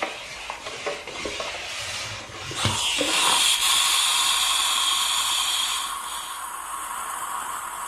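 Steam iron: a few light knocks and rustles, then a short thump and a loud burst of hissing steam for about three seconds, which then drops to a softer steady hiss.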